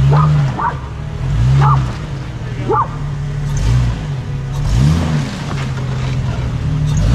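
A 2018 Jeep JL Wrangler's engine rock crawling, revving up and easing off in surges every one to three seconds, with a few short high chirps in the first few seconds.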